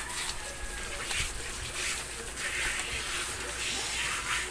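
Water spraying from a hose spray nozzle onto a wet Maltese's coat and the plastic grate beneath it, rinsing the dog. A steady hiss and splatter that swells and eases several times as the spray moves.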